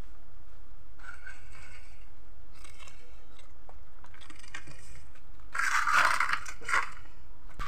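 Cardboard firecracker trays being handled and set down on a concrete floor: faint scrapes and rustles, then a louder stretch of cardboard scraping and crunching about six seconds in.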